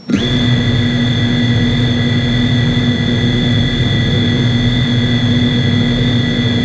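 FPV quadcopter's brushless motors spinning up abruptly and then running at a steady idle while the drone sits on the ground: a constant whine with several fixed pitches over a buzzing hum, heard right at the onboard camera.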